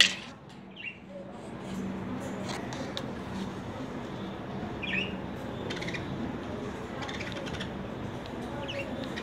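A budgerigar giving a few short chirps, about a second in, near the middle and near the end, over a steady low hum and scattered light clicks.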